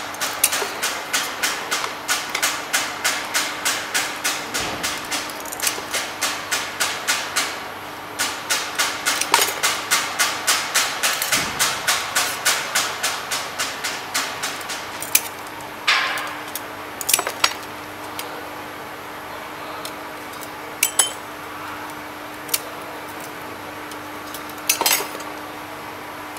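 Thin scored glass being snapped off bit by bit with hand pliers: a quick series of sharp snaps, about three a second, with a short break about a third of the way in. Over the second half, a few scattered clinks of glass pieces. A steady low hum runs underneath.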